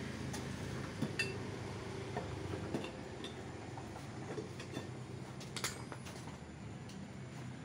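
Scattered metal clinks and taps from hand tools and wheel parts as a motor scooter's rear tyre is worked on by hand, the sharpest about a second in and a longer rattle near the six-second mark, over a steady low hum.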